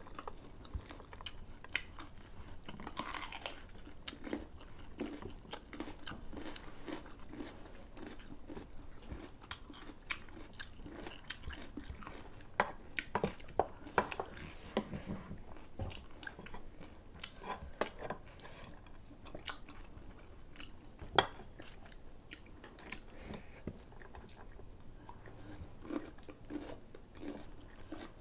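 People chewing and crunching food, with wet mouth sounds and a steady scatter of short clicks and taps; one sharp click about three-quarters of the way through stands out as the loudest.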